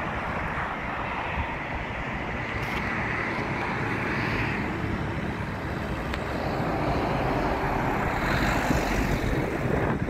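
Wind buffeting the microphone, a steady uneven rumble over a fainter airy hiss, growing louder toward the end.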